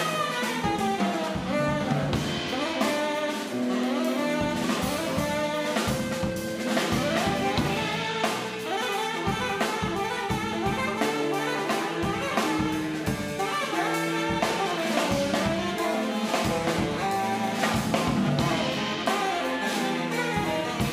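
Small jazz band playing: saxophone out front over electric guitar, electric bass and drum kit.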